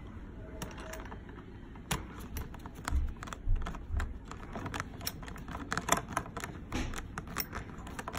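A hand screwdriver turning a screw into the plastic frame of a baby rocker. It makes an uneven run of small clicks and ticks, metal on screw and plastic, that comes thicker from about two seconds in, with a few dull bumps of handling.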